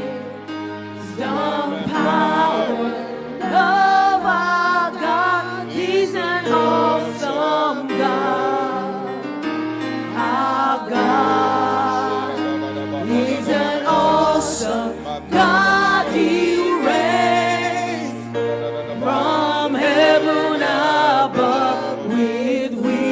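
Gospel worship music: singing with a wavering, drawn-out melody over held keyboard chords and low bass notes that change every second or two.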